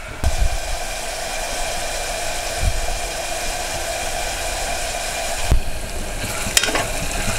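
Chopped onions sizzling in hot oil in an aluminium pressure cooker, a steady frying hiss. From about five and a half seconds in, a metal slotted spoon clicks and scrapes against the pot as they are stirred.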